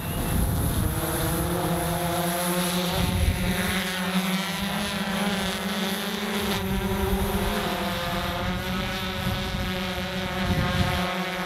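Rakuten's Tenku multirotor delivery drone, its propellers humming steadily as it hovers and climbs, with a few low rumbles of wind on the microphone.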